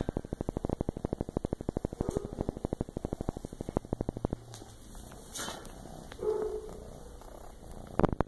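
Kitten purring close to the microphone, a rapid, even pulsing. It fades about halfway through and comes back loud near the end, with the kitten's face against the microphone.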